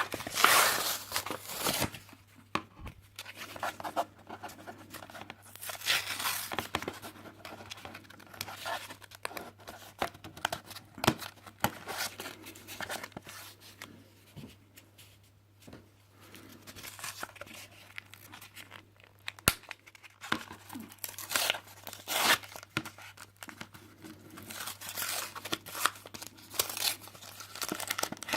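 Pokémon card booster pack packaging being torn and crinkled open by hand, in irregular bursts with a quieter stretch midway.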